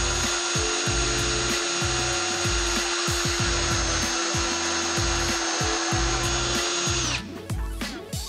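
DeWalt cordless drill running at a steady speed as it bores a pilot hole into a wooden stud. Its motor whine holds one pitch over the hiss of the bit cutting wood, then stops about seven seconds in.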